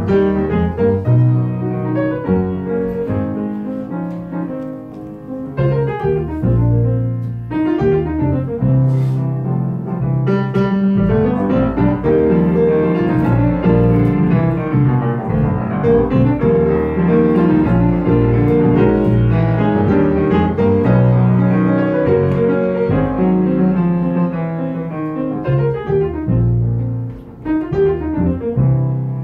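Live piano playing an instrumental passage of full chords with strong low bass notes, dropping briefly in loudness near the end.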